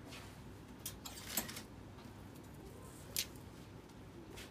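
A few light clicks of clothes hangers and a brief rustle of fabric as a robe is taken off the rail and held up, with one sharp click about three seconds in.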